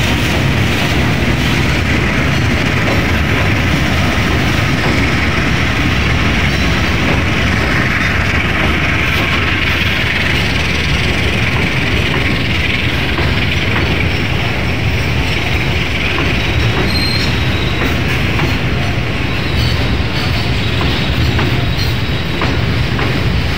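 A container freight train's flat wagons rolling past on the adjacent track, giving a loud, steady rumble and clatter of steel wheels on the rails.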